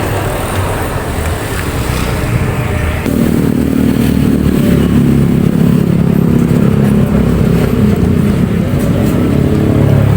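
Road traffic passing close by, with a vehicle engine running steadily near the microphone from about three seconds in, a loud low hum.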